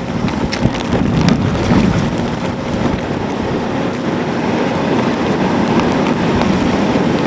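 Typhoon wind and rain, with gusts buffeting the microphone: a loud, steady rush of noise.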